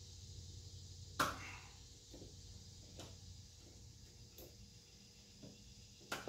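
Small metal parts being handled while a wheel is fitted: scattered light taps and clicks, with a sharp click about a second in and another near the end, over a low steady hum.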